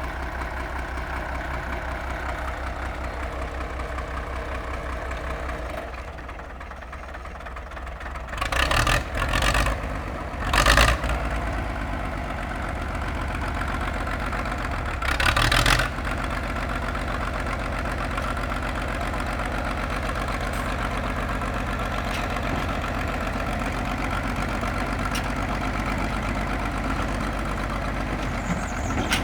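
Caterpillar D6 crawler's diesel engine idling with a steady low pulse. It is briefly interrupted by several loud, noisy bursts, a cluster about a third of the way in and one more about half way through.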